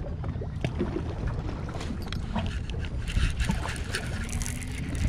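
Seawater lapping and splashing against a small fishing boat's hull, with many short crackling splashes over a low wind rumble on the microphone.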